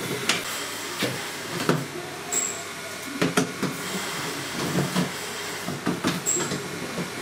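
Metal-edged plywood shipping crate being opened by hand: a string of irregular knocks, clicks and scrapes as the lid is worked loose and lifted.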